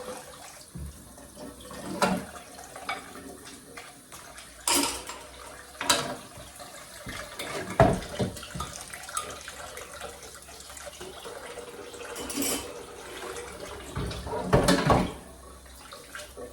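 Kitchen work sounds: water running at a sink tap, with several sharp knocks and clinks of pots, dishes or utensils scattered through it.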